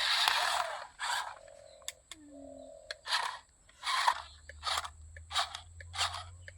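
Soil and grit scraping and crunching in a run of short bursts, with a small electric motor whining briefly between them, as toy construction vehicles dig and push earth. A low steady hum joins about two-thirds of the way through.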